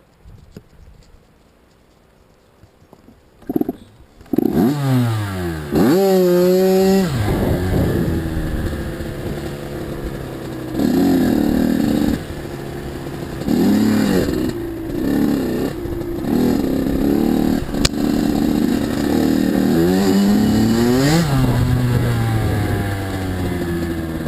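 Kawasaki KX85 two-stroke dirt bike engine starting about four seconds in after a short quiet spell and revving up at once, then running under way with the throttle opened and closed again and again, the pitch rising and falling.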